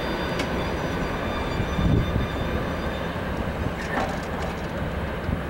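Tail end of a mixed freight train rolling away over the rails: a steady rumble of wheels and cars, with a faint high squeal near the start that fades out. A heavier thump comes about two seconds in and a sharp clank about four seconds in.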